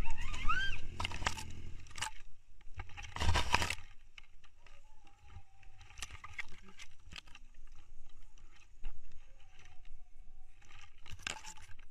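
Motorcycle crash: engine sound and scraping noise in the first two seconds, a loud scrape or impact about three seconds in, then scattered knocks and clicks while the downed bike lies on the road.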